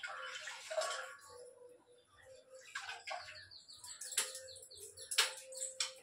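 Water splashing and dripping in the first second as a wet cloth is wrung over a steel pot, then birds chirping in short runs, with two sharp clicks near the end.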